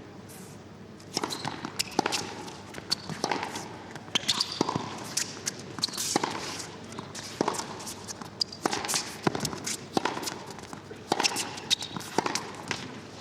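A tennis rally: the ball struck by racquets about once a second, with smaller knocks of bounces and footsteps on court between, starting about a second in.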